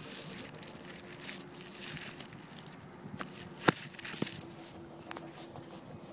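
Soft rustling and crackling of grass brushed close to the microphone, with one sharp click about halfway through and a faint steady hum underneath.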